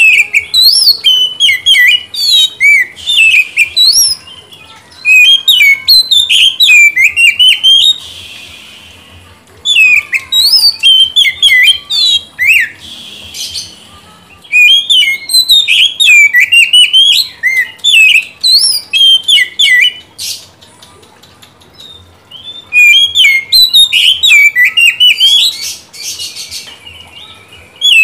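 Oriental magpie-robin (kacer) singing in five loud bouts, each a fast run of varied chirps and sweeping whistles, with short pauses between. It is the challenging full song that calls out a rival and prompts other magpie-robins to answer.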